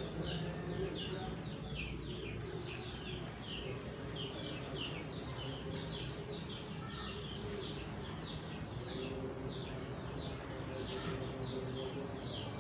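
A small bird chirping over and over in a rapid, even series of short downward-sliding chirps, about two or three a second, over a low background hum.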